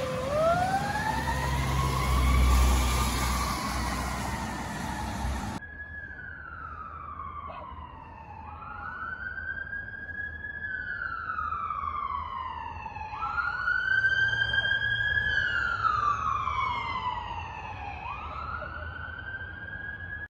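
Emergency vehicle siren wailing, at first close by over engine rumble and road hiss. It then turns quieter and more distant, sweeping up quickly and falling slowly about four times.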